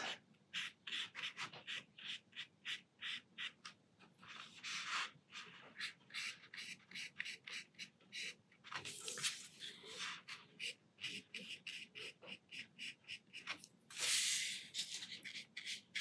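Watercolour brush stroking and dabbing on paper: a faint run of short scratchy strokes, two or three a second, with a couple of longer brushing strokes near the middle and near the end.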